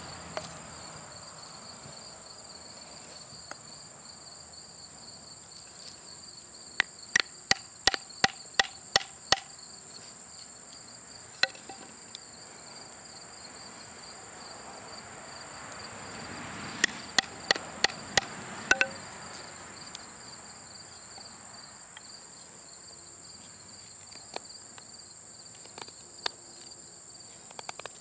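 Two quick runs of sharp knocks, about three a second, as a knife is driven into a wooden stake on a log round to cut notches, with a few lone knocks between. Crickets chirr steadily throughout.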